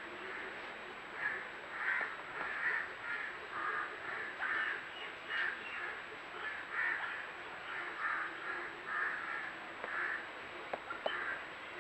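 Birds calling with short, harsh, caw-like calls, repeated irregularly about once or twice a second, with a couple of sharp ticks near the end.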